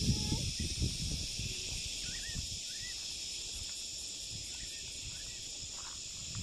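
Steady, high-pitched chorus of insects droning without a break, with a few faint bird chirps about two seconds in and again near the end.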